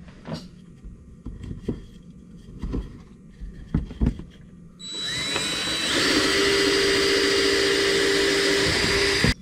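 A few knocks as a wooden stake is handled on the bench. About halfway in, a cordless drill with a 5/8-inch bit spins up, its whine rising, and bores steadily through the stake. It stops just before the end.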